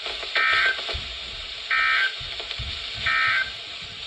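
Three short, identical bursts of EAS SAME data tones, about a second apart, from a NOAA Weather Radio broadcast. This is the end-of-message signal that closes a severe thunderstorm warning. A steady hiss from the radio reception runs under the bursts.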